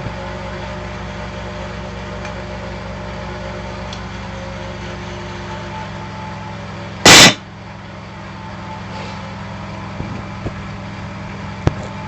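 A steady low machine hum, with one very loud knock about seven seconds in and a few faint clicks near the end.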